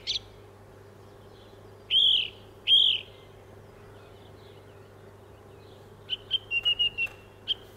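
Recorded song thrush song played back over speakers in a room: two loud, matching whistled phrases about two seconds in, the repetition typical of a song thrush. After a pause comes a run of quick short notes and a thin high trill near the end.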